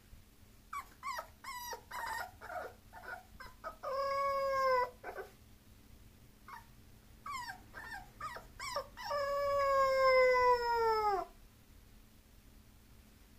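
Bulloxer puppy whining: a run of short high yelps, then a drawn-out whine about four seconds in, more short yelps, and a longer whine that sags in pitch as it fades out near the end.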